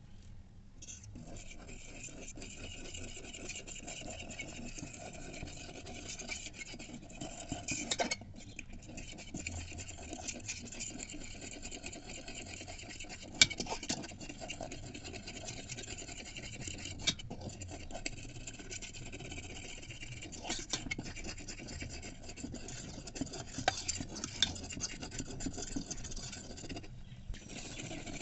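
A spoon scraping and stirring scrambled egg inside an electric kettle: continuous scratchy rubbing with occasional sharp clicks of metal against the kettle.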